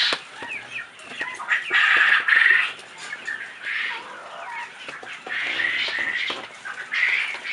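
Flock of young chickens calling in a chicken house, with bursts of high squawking and peeping about two seconds in, again around six seconds and near the end. Short clicks are scattered between the calls.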